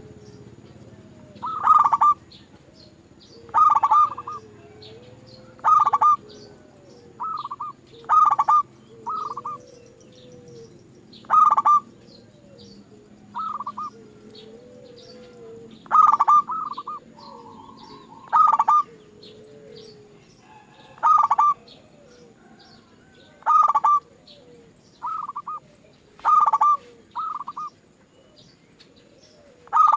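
Zebra dove (perkutut) calling over and over: a loud burst of short cooing notes about every two seconds, with softer gliding coos and faint high chirps in between, over a steady low hum.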